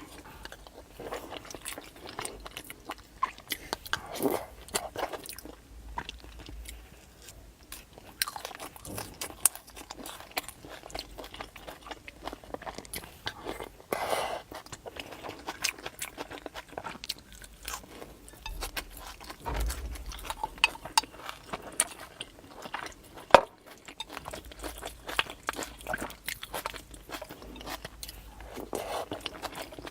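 A person eating spicy tofu over rice, with irregular biting, crunching and chewing sounds throughout.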